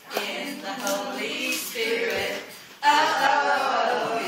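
A group of people singing a worship song together, the singing getting suddenly louder about three seconds in.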